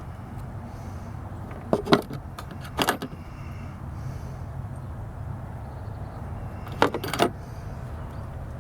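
Short metallic clinks and rattles, like tools or small parts being handled, in three brief bursts: about two seconds in, about three seconds in and near the end. A steady low hum runs underneath.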